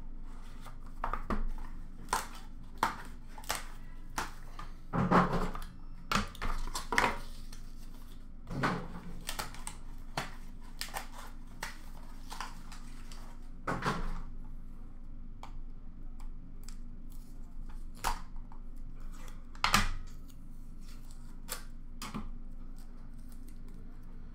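Hands unwrapping and opening a sealed hockey trading-card box: irregular crinkles, clicks and light taps of wrapper and cardboard being handled, with a few louder knocks along the way.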